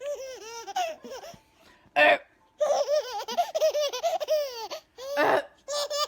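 A baby laughing hard in long runs of high giggles and belly laughs. The laughter is set off by a woman's short burping noises, one about two seconds in and another about five seconds in.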